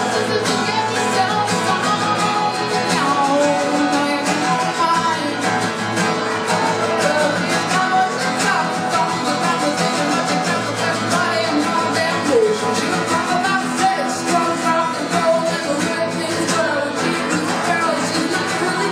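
A woman singing a song with her own acoustic guitar strumming along, a solo live performance.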